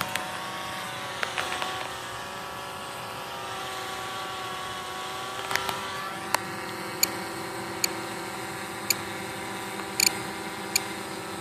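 DJI F550 hexacopter's six electric motors and propellers humming steadily in flight, the pitch shifting a little about halfway through. Several short sharp ticks come in the second half.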